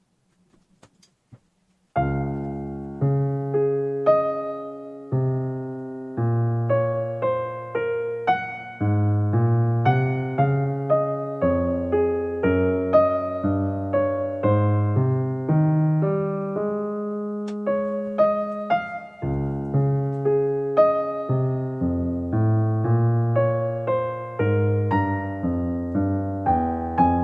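Background music on a piano-like keyboard, a run of notes each struck and fading, starting about two seconds in after a short near-silence.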